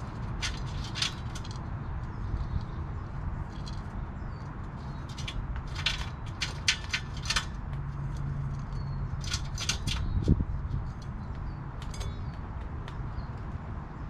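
California ground squirrel eating nuts and seeds from a feeder tray close up: clusters of short, sharp crunching clicks over a steady low rumble.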